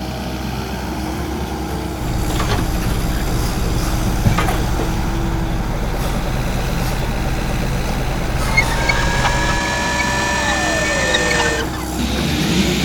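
Foundation drilling rig running steadily with a heavy low engine rumble while boring into the ground, with a couple of sharp knocks. Partway through, a high whine sets in, slides down in pitch, and cuts off.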